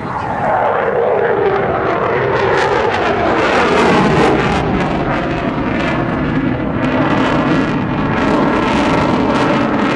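Lockheed Martin F-22 Raptor's twin Pratt & Whitney F119 turbofans passing low overhead: loud jet noise whose pitch falls over the first couple of seconds as it goes by, then stays loud with a ragged crackle.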